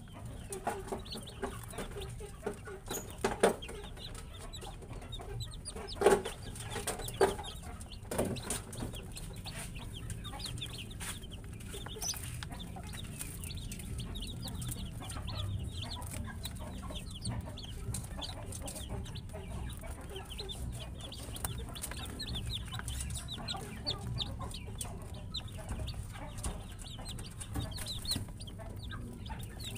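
A brood of baby chicks peeping continuously, many short high cheeps overlapping. A few sharp knocks come in the first eight seconds, the loudest about six seconds in, over a steady low hum.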